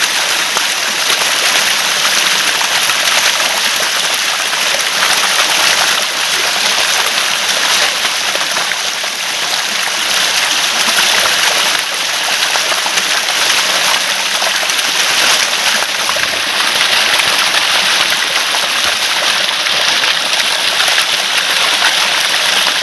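Running water gurgling and splashing in a steady, dense rush.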